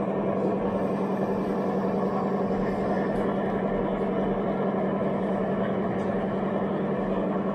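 Steady murmur of many voices in a busy hall over a constant low hum.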